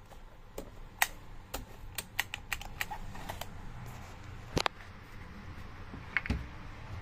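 Irregular light clicks and taps, a dozen or more, from hands handling the plastic housing and controls of a new Stihl MS 271 chainsaw, over faint low background noise.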